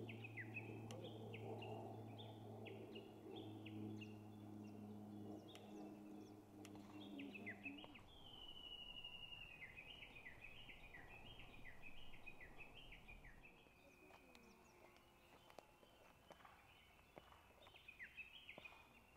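Faint birdsong: small birds singing a continuous run of short, falling chirps. A low steady hum underneath stops about eight seconds in, and a few light knocks come near the end.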